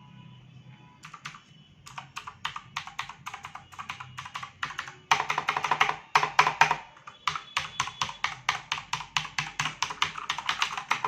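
Typing on a Zebronics Zeb-Max Pro mechanical keyboard with blue switches: a run of sharp, clicky keystrokes. It starts sparse about a second in, turns into fast continuous typing, and has its loudest flurry about five seconds in.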